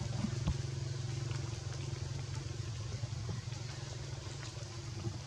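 Steady rain hissing on the forest leaves, with a steady low drone underneath and a few faint ticks of drops.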